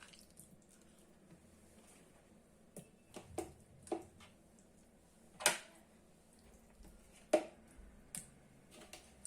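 Scattered kitchen handling noises: a few short clicks and knocks, the loudest about five and a half seconds in, with a quiet room between them.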